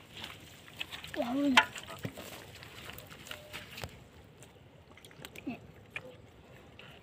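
A person's voice in a couple of short utterances, one about a second and a half in and another near the end, with scattered light clicks and knocks between them.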